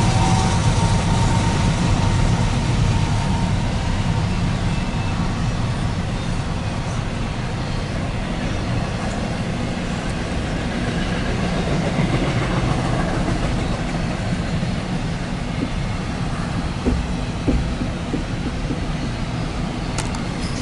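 CSX intermodal/autorack freight train rolling past: a steady, loud rumble and rattle of wheels on the rails, with a few sharp clanks late on.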